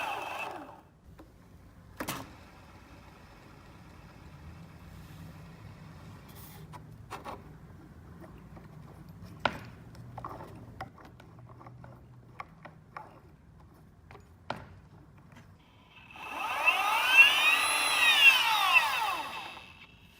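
Boosted Stealth electric skateboard's rear drive motor spun up and back down, its whine rising then falling in pitch, with sharp clicks through the run: the bad clicking of a faulty motor, which the owner has traced to the motor and not the wheel or its bearings. Before it, a few scattered single clicks and knocks.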